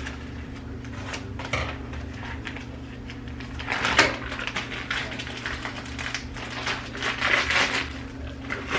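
A plastic bag of frozen broccoli being handled and emptied into a soup pot: irregular crinkling and rattling, loudest about four seconds in and again near the end, over a steady low hum.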